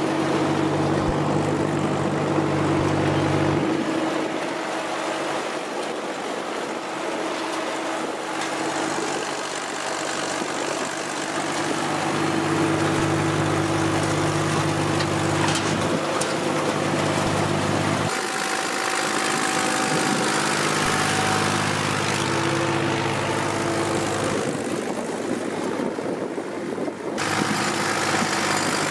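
Tractor diesel engine, the Perkins in an Ursus C-360 3P, running steadily under load while it pulls a seed drill. The engine note changes abruptly about 4, 18 and 27 seconds in.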